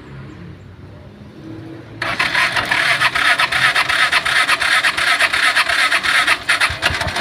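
Piaggio Ape 200cc engine being cranked by its starter on a jumped battery. It cranks with a loud, rapid, grinding chatter starting about two seconds in, then catches near the end and settles into a low, even running beat.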